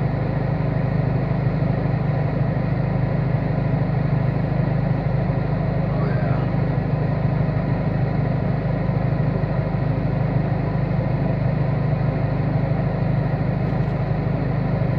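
Steady low hum of an idling car engine, heard inside the car's cabin.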